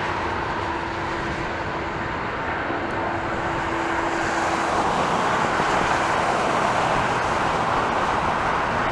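Steady rushing noise of jet airliner engines, growing a little louder about four seconds in.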